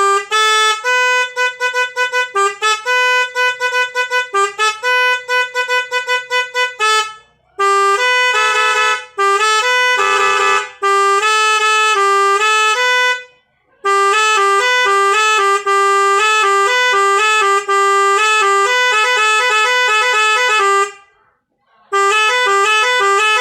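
Telolet horn, a multi-tone musical vehicle horn here run without an air tank, playing tunes: quick runs of short staccato notes for the first several seconds, then longer phrases of stepped notes, broken by a few short pauses.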